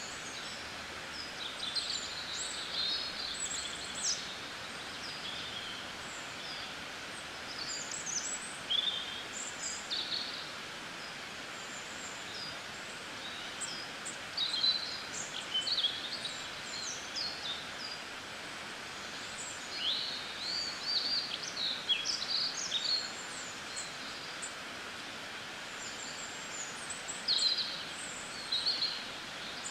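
Several birds chirping in short, varied calls scattered throughout, over a steady hiss.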